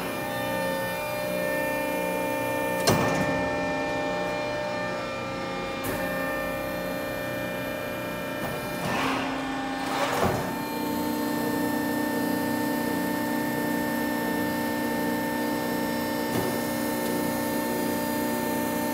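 Hydraulic power unit of a 175-ton Accurpress CNC press brake, its 20 hp motor and pump running with a steady hum of several held tones. There are a few sharp clunks, and about ten seconds in the hum shifts to a stronger, lower tone.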